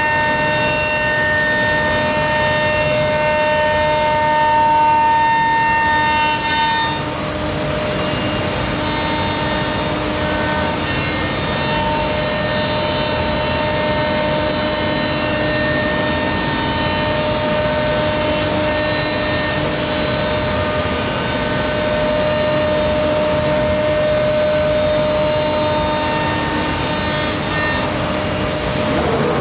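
Omnitech Selexx PAL CNC router machining a sheet: a steady whine of several held tones over a continuous rushing noise. The tones shift about seven seconds in.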